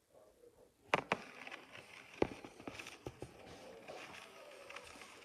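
A few sharp, light knocks and clicks over faint background noise. Two come close together about a second in, and the loudest comes just after two seconds.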